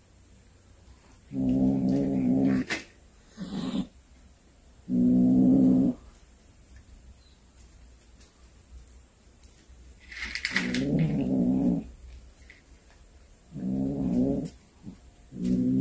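Domestic tabby cat giving low, drawn-out growling yowls over a small snake it has caught. There are about five calls, each a second or so long, with pauses between them: the possessive growl of a cat guarding its prey. A few short scuffling noises fall between the calls.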